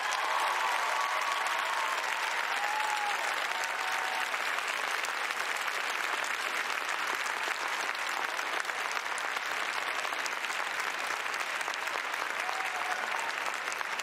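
Large arena crowd applauding steadily at the end of a figure skating routine, with a few voices cheering over it in the first few seconds.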